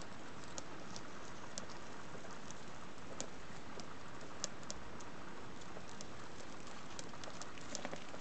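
Soft, irregular clicks and scratches of Eudicella flower beetles clambering over dry leaves and moss, over a steady hiss.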